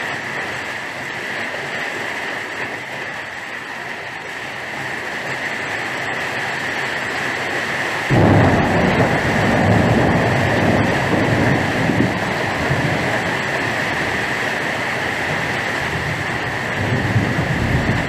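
Rain falling steadily. About eight seconds in, a louder, deeper rumble comes in suddenly and carries on under the rain.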